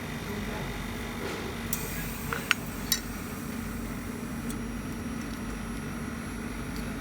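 Steady hum of workshop machinery with a low tone, and two short metallic clinks about two and a half and three seconds in.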